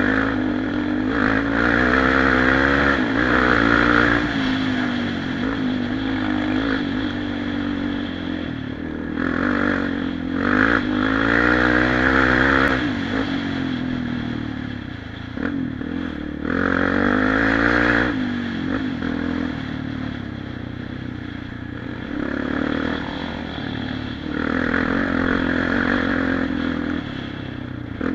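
Single-cylinder four-stroke quad engine under hard riding, its pitch rising and falling again and again as the throttle is opened and closed. There are louder surges of revs about two seconds in, around ten seconds, around seventeen seconds and again near the end.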